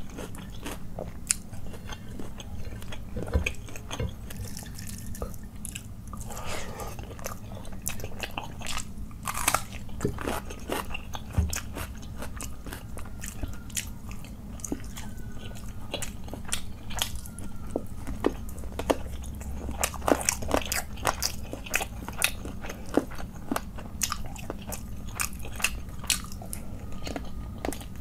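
Close-miked eating by hand: chewing and biting of chicken leg curry with rice, with many sharp, irregular wet mouth clicks and smacks, and fingers working through the curried rice on the plate.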